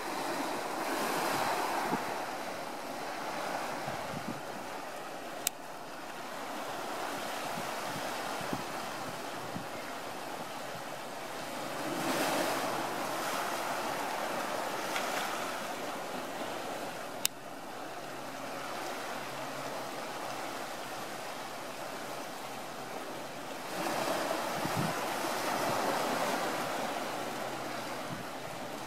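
Sea surf washing against rocks, a steady rush that swells louder three times as waves come in and ebbs between them.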